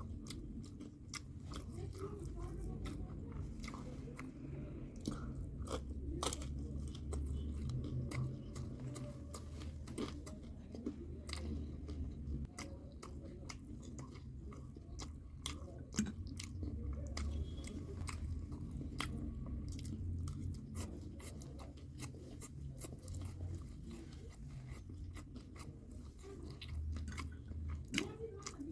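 Close-miked chewing and biting, with many scattered crunchy bites and mouth clicks throughout.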